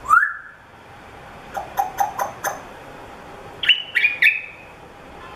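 African grey parrot calling: a short rising whistle, then a quick run of five sharp clicks, then three short whistles that step up and down in pitch about four seconds in.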